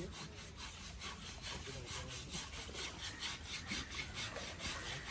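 Coconut husk scrubbed hard back and forth over a wet elephant's hide, a rough scratchy rasping in quick, regular strokes, several a second.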